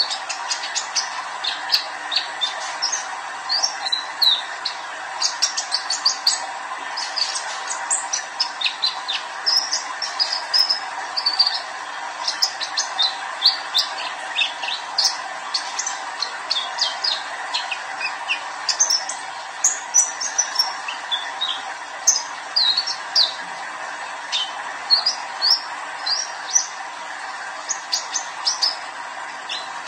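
Young male olive-backed sunbird (kolibri ninja) singing: a fast, continuous stream of short, high-pitched chirps and twitters. A steady background hiss runs beneath it.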